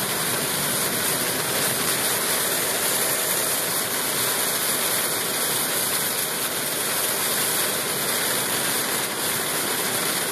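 Steady heavy rain on a moving car together with the tyres on the wet road, heard from inside the cabin as an even, unbroken rush.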